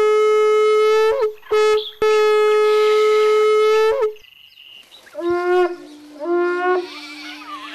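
Animal-horn trumpet blown in three blasts on one steady note: a long blast, a short one about a second and a half in, and another long blast that stops about four seconds in. After a short pause, two brief lower calls and then a steady lower note follow near the end.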